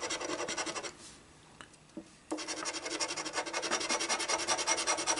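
A coin scratching the latex coating off the bonus spots of a scratch-off lottery ticket in rapid back-and-forth strokes. It pauses for about a second, then starts again.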